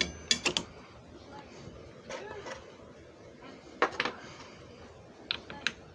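A few sharp clicks and knocks in three short clusters: at the start, about four seconds in, and near the end.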